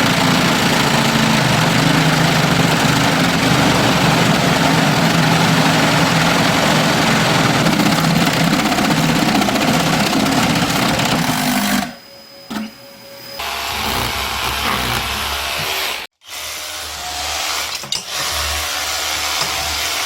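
A power tool running steadily and loudly. It breaks off about twelve seconds in, and after a brief silence a quieter machine noise carries on.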